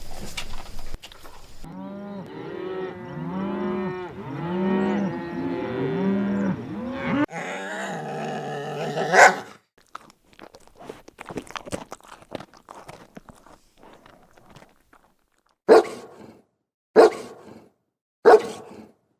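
Farm animals calling: many short rising-and-falling calls overlapping for several seconds, then scattered clicks and three short loud calls, each about a second apart, near the end.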